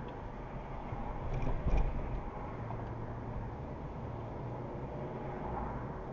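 A car driving along, with a steady low rumble of engine and road noise. A short thump comes a little under two seconds in.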